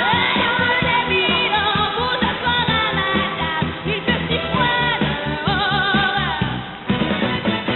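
A solo singer performing a pop song over band accompaniment, holding several notes with vibrato.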